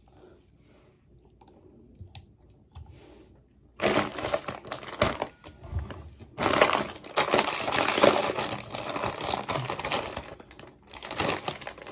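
A plastic potato chip bag crinkling loudly as it is handled and pulled open, starting suddenly about four seconds in and going on for several seconds, with a short break near the end.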